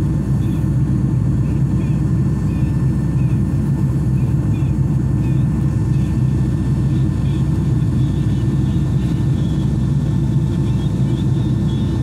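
Steady, low cabin rumble of a Boeing 757 in flight: the noise of its jet engines and the airflow over the fuselage, heard from inside the passenger cabin.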